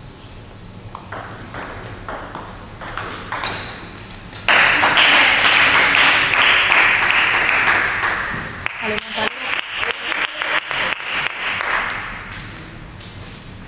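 Table tennis rally: the celluloid ball clicking off bats and table for a few seconds, then a sudden loud burst of cheering and shouting when the point is won, fading away, followed by several seconds of quick hand-clapping.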